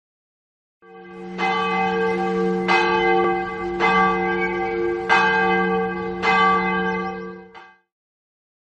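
Large church bell tolling, about five strokes a little over a second apart, each stroke's ringing carrying over into the next, fading in at the start and dying away near the end.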